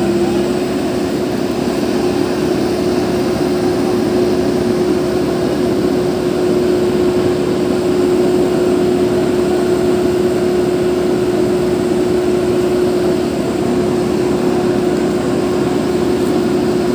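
Backhoe loader's diesel engine running steadily with a constant hum while it hauls a crashed pickup truck out on cables.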